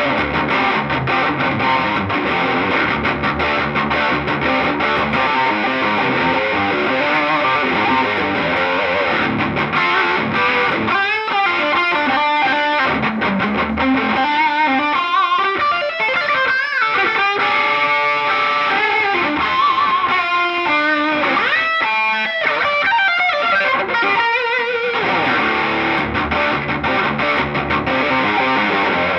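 Electric guitar, a 2019 Gibson Les Paul Classic, played through an amp: chords at first, then about ten seconds in a run of single-note lead lines with string bends and vibrato, returning to chords near the end.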